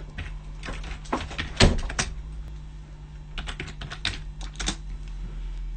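Scattered clusters of short sharp clicks and taps, like typing or handling gear, over a steady low electrical hum.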